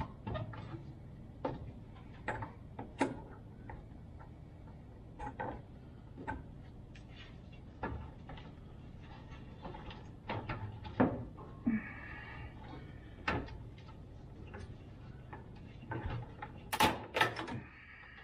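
Irregular clicks, taps and knocks of hands working the hose and line fittings on top of a fuel tank from underneath a van, loudest about eleven seconds in and in a cluster near the end.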